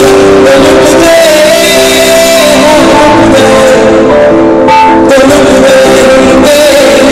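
A male singer performing live with a rock band, guitar prominent, heard over the venue PA and recorded very loud from the audience. The singing is made of long held notes.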